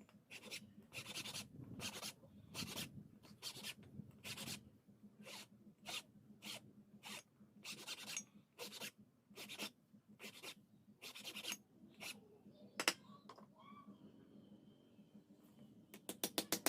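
Faint hand-file strokes rasping back and forth over a khukuri blade, about two strokes a second. They stop about three-quarters of the way through, followed by a sharp click and a quick run of light ticks near the end.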